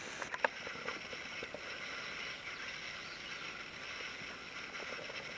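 Quiet woodland ambience: a steady soft hiss, with a few light clicks in the first half-second.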